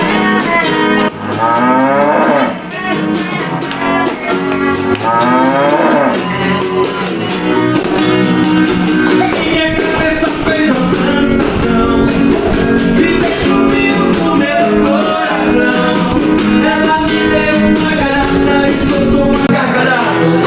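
Loud background music with steady held tones, broken twice in the first six seconds by sweeping, sliding pitches.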